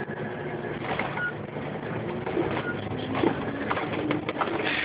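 Cabin noise at the front of a moving city bus: a steady low drone from the running drivetrain and road, with a few rattles and clicks near the end.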